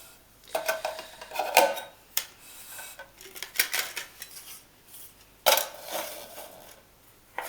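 Metal pots and parts of a Swiss Army META-50 storm cooker clanking and scraping as they are handled and fitted together, a series of separate knocks with a brief ring; the loudest clank comes about five and a half seconds in.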